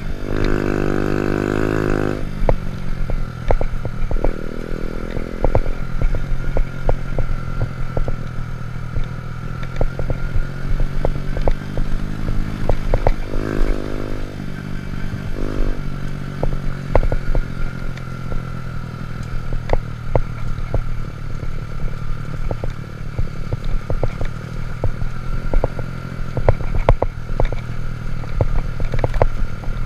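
Honda Monkey Z50 mini motorcycle's small single-cylinder engine running as it is ridden, revving up in spells. Frequent sharp clatter and knocks run through it.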